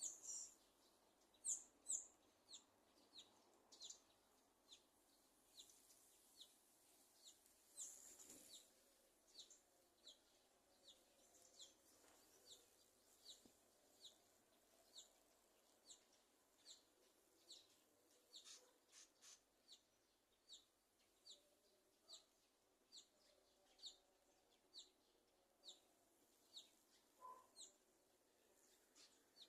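A small bird giving short, high chirps over and over at a steady pace, a little more than one a second. The loudest are a few notes about two seconds in.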